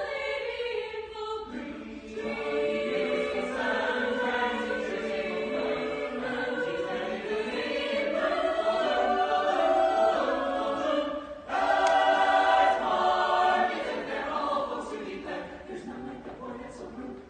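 Mixed choir of men's and women's voices singing a cappella in harmony. About two-thirds of the way through the voices break off briefly, then come back in louder, and the singing grows softer toward the end.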